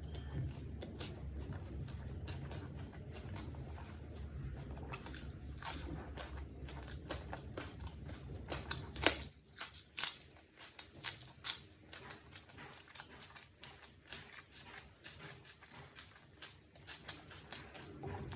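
Close-miked chewing and biting of chicken biryani with raw onion, wet mouth sounds broken by sharp crunches, with a run of the loudest crunches around the middle.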